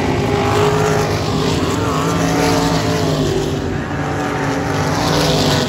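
Several open-wheel dirt-track race cars racing in a pack, their engines revving and overlapping at different pitches that rise and fall as they run through the turns.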